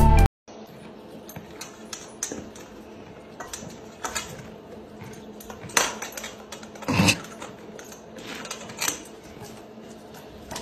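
Irregular clinks, clicks and knocks of a horse and a dog eating from a metal feed bowl on a concrete floor, with one heavier knock about seven seconds in.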